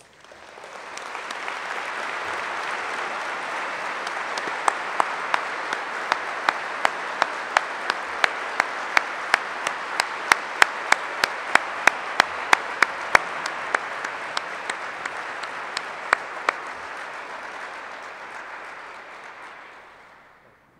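Audience applauding, swelling over the first two seconds and dying away near the end. Through the middle, one nearby person's louder single claps stand out at about two a second.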